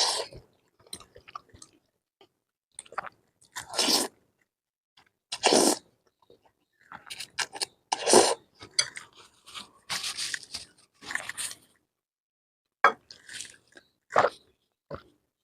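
A person eating spicy noodles close to the microphone: chewing and slurping mouth noises in separate bursts every second or two, with short pauses between them.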